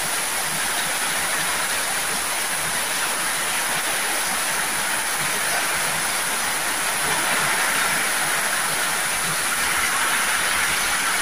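Heavy tropical downpour: rain falling hard on corrugated roofs and pouring off the eaves in a steady rushing hiss, growing a little louder about two-thirds of the way through.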